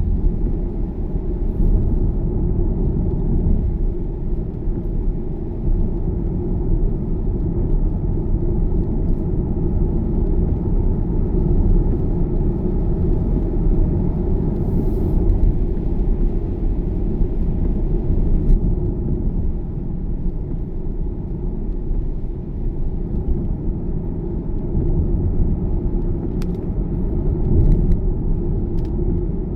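Steady low rumble of a car's engine and tyres on a wet road, heard from inside the cabin while driving, with a few faint clicks near the end.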